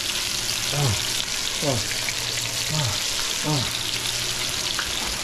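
Battered catfish nuggets shallow-frying in hot oil in a skillet: a steady sizzle with small pops, over a low steady hum. Four short tones, each falling sharply in pitch, come about a second apart.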